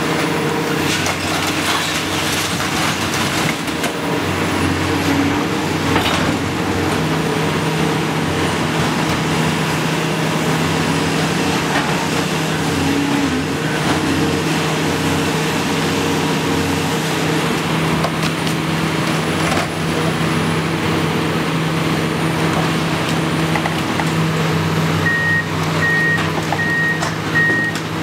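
Hydraulic excavator's diesel engine running steadily under load as it demolishes a facade, with crashes and clatters of falling debris in the first few seconds. Near the end a reversing alarm starts beeping at a steady rate.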